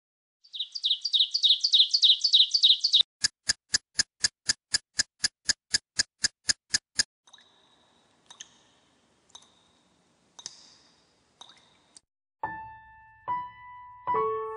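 Intro of a song's backing track: a fast, high bird-like chirping for a couple of seconds, then a run of sharp ticks about four a second, a few faint scattered sounds, and piano notes beginning near the end.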